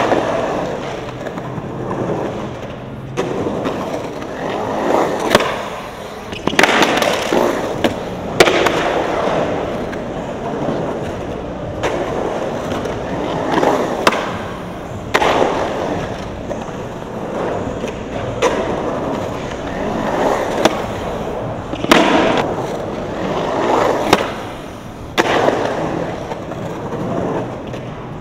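Skateboard wheels rolling on a concrete bowl, the rumble swelling and fading as the skater carves back and forth. Sharp clacks of the board striking the concrete break in every few seconds.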